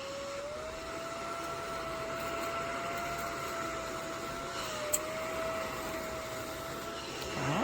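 Battery-powered mini desktop vacuum whirring up with a rising whine, then running steadily at a high pitch while it sucks up spilled ash. About halfway through the pitch dips briefly and there is a small click, and the motor winds down near the end.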